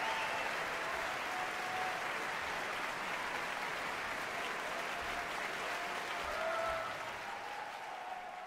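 Concert-hall audience applauding steadily, fading away near the end.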